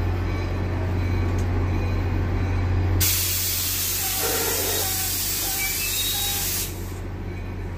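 NJ Transit commuter train moving slowly along the platform, with a steady low drone. About three seconds in, a loud hiss of air venting from the train's air brakes starts abruptly and cuts off nearly four seconds later, with a few faint squeals under it.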